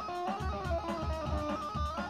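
Electric guitar playing a lead line of single picked notes that step up and down in pitch, over a steady low beat.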